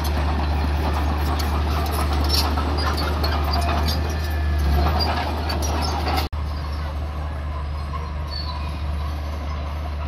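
Komatsu D31P crawler bulldozer's diesel engine running steadily under load, with a strong low hum and sharp clanking and rattling from the steel tracks and blade as it pushes dirt. About six seconds in the sound cuts off abruptly and resumes as a steadier, slightly quieter machine engine drone.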